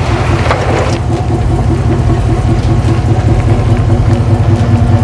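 Second-generation Dodge Ram pickup's engine running steadily as the truck is driven, a low drone that grows slightly louder toward the end.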